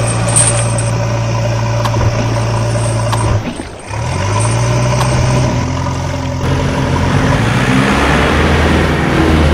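Steady engine sound, like a tractor engine running, that drops out briefly about three and a half seconds in and comes back with its pitch shifting.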